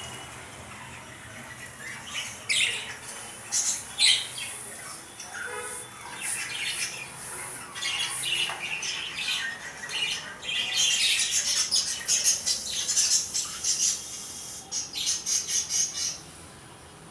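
Caged lovebirds and finches chirping and squawking together, with a couple of sharp squawks a few seconds in and a busy stretch of quick, repeated chirps in the second half.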